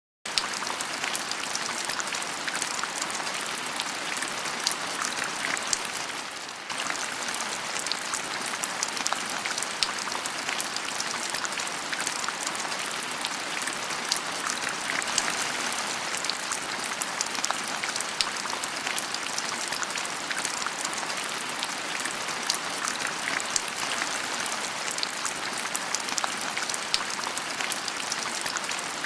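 Tap water spraying from a swivel faucet aerator's spray head into a stainless steel sink, a steady splashing hiss on the metal and around glass jars. It starts suddenly just after the beginning and dips briefly around six seconds in.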